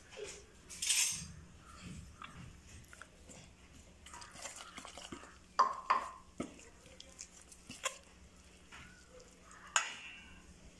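A steel spoon scraping and clinking against a stainless steel bowl while stirring flour and water into a thin batter. Irregular stirring noises carry sharper clinks at intervals, and there is a brief louder rush of noise about a second in.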